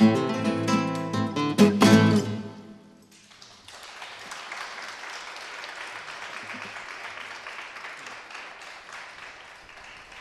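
Acoustic guitars and tabla finishing a fusion piece with loud final strummed chords, which ring out and stop. About a second later the audience starts applauding, and the applause goes on steadily.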